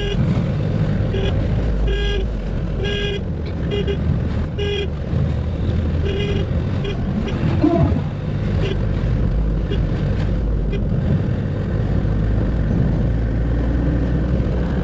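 Road vehicle running with a steady low rumble. Short horn toots sound several times in quick succession in the first five seconds and once more about six seconds in.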